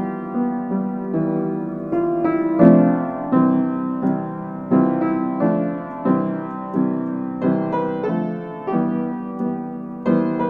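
Background piano music: a gentle, unhurried melody of single notes and chords, each struck and left to fade.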